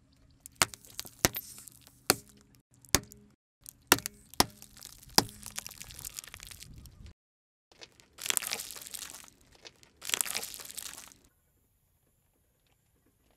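Plastic candy egg capsules cracking under a car tyre: about seven sharp cracks in the first five seconds, then two longer stretches of crunching noise.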